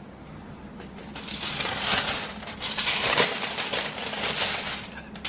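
Aluminium foil crinkling and crackling as gloved hands fold and wrap it, starting about a second in and easing off near the end.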